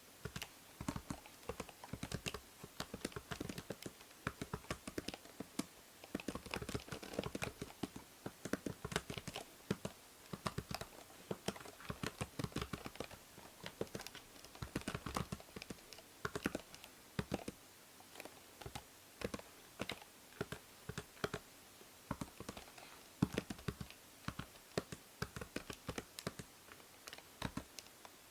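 Computer keyboard being typed on continuously in fast, irregular runs of key clicks with brief pauses, over a steady hiss from a binaural microphone.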